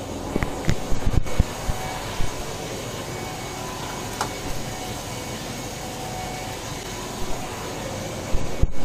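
Steady low machinery hum, with a cluster of short knocks and thumps about a second in and again near the end, from a plastic bowl and things being handled while walking.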